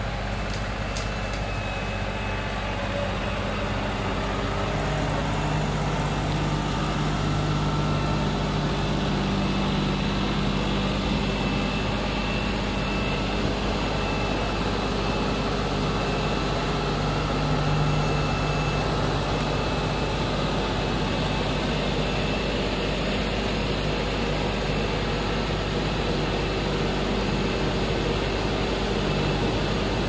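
The diesel engine of an LS XR3135 compact tractor running steadily while the tractor maneuvers with its front loader. Its drone gets a little louder about five seconds in.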